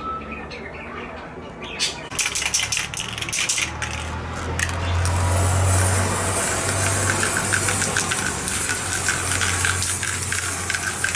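Aerosol spray-paint can: a rattle of clicks a couple of seconds in as it is shaken, then a steady spraying hiss from about five seconds in as paint is sprayed over metal bottle caps.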